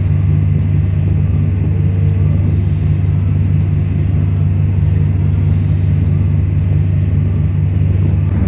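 A boat's engine running steadily under way: a loud, even low drone.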